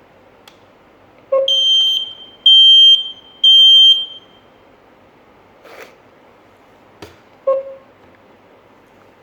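GSM alarm system's piezo beeper sounding three loud, high-pitched beeps about a second apart. A few seconds later there is a short lower blip and some faint clicks.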